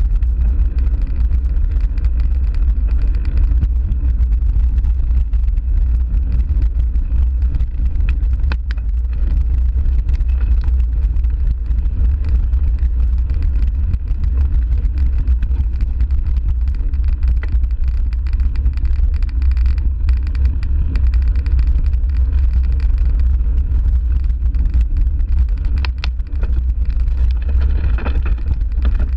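Mountain bike riding over a dirt and grass trail: a steady low wind rumble on the mounted camera's microphone, mixed with tyre noise on the ground and a few sharp rattling clicks from the bike.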